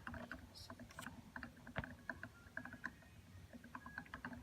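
Faint, irregular bubbling pops from an ink bottle upended in an Epson L3110 ink-tank filler, as black ink drains into the tank and air bubbles back up into the bottle.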